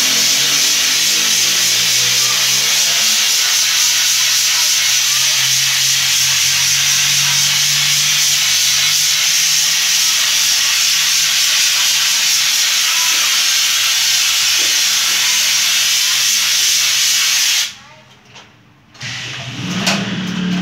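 Compressed-air spray gun hissing steadily as it sprays chrome coating solution onto a glass goblet; the spray cuts off suddenly near the end.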